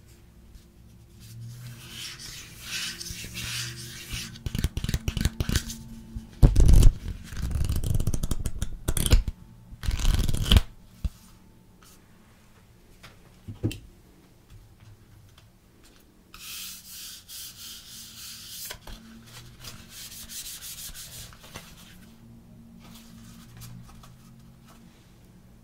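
Hands handling an oracle card deck and its card-stock guidebook close to the microphone: rubbing and sliding of card, with several loud bumps and thuds in the middle. Later comes a few seconds of cards sliding against each other as the deck is shuffled in the hands.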